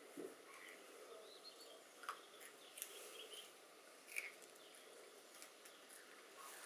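Quiet outdoor near-silence with a few faint crisp snaps from green beans being broken and chewed, and faint distant bird chirps.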